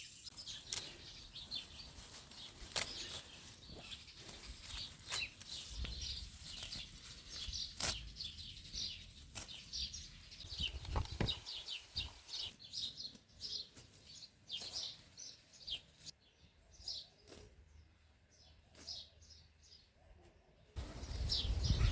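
Small birds chirping in quick, repeated high notes, with a few sharp clicks among them; a louder low rumble comes in near the end.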